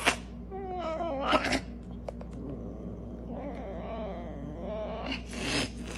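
A serval hissing and snarling: a sharp spit at the start, a wavering cry about a second in, and a long hiss about five seconds in.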